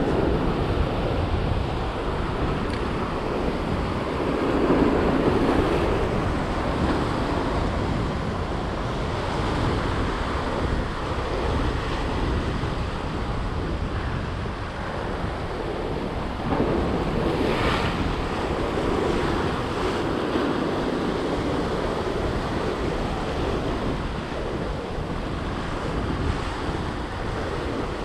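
Sea surf breaking and washing over the rocks below, a steady rush that swells louder as waves come in, with wind buffeting the microphone.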